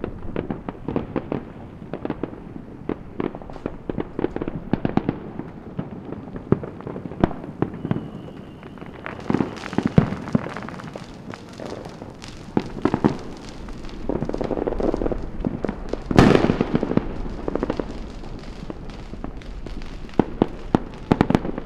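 Many fireworks and firecrackers banging and popping at once across a city, irregular and overlapping, with a brief high whistle about eight seconds in. The loudest bang comes about sixteen seconds in, within a stretch of heavier low rumbling.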